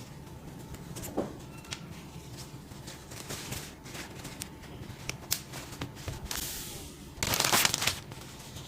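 Packaging being handled during an unboxing: scattered light clicks and crinkles, then a louder crinkling rustle of under a second near the end.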